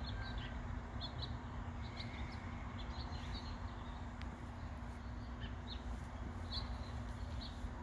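Small birds chirping in short, scattered high calls over a steady outdoor background with a low rumble and a faint steady hum.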